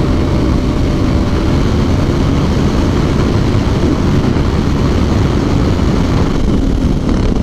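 Ducati Hypermotard's L-twin engine running at speed under heavy wind rush on the handlebar microphone, a steady, dense roar.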